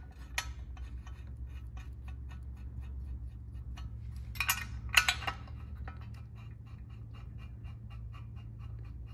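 Light metal clinks of a steel breather bolt against the aluminium air-cleaner backing plate as it is pushed through and started by hand, loudest in a pair about five seconds in. Under them run faint, even ticks about four a second and a low steady hum.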